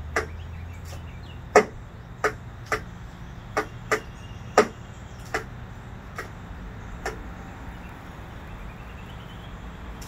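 A pileated woodpecker taps its bill against window glass. There are about ten sharp, single knocks at uneven intervals, not a drumming roll, and they stop about seven seconds in.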